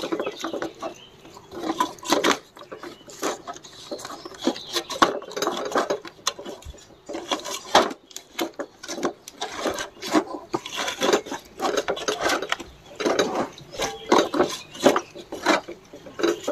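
Hands rubbing a wet paste of salt, turmeric and lemon juice into a whole fish on a steel plate: an irregular run of squelching and rubbing, with light knocks of fish and fingers against the metal plate.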